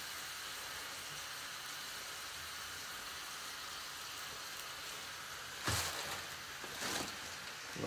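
Fish fillets shallow-frying in oil in a frying pan, a steady sizzle. Two brief louder noises rise over it about six and seven seconds in.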